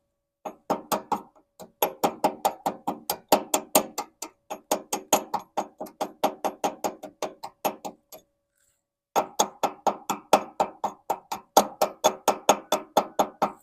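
Hand hammer peening a fresh weld on cast iron with quick, ringing metal taps, about five or six a second, in runs with a pause of about a second past the middle. The peening stretches the weld metal a little so that it doesn't crack as it cools.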